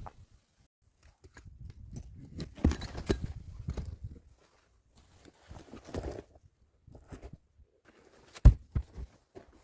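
Scraping and crunching handling noises with a few sharp knocks, the loudest knock coming near the end, followed by a smaller one.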